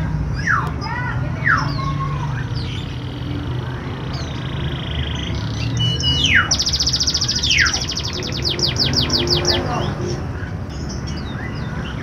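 Domestic canary singing: quick falling whistled notes, a held high note, then a fast trill of rapid repeated notes past the middle. A steady low hum runs underneath.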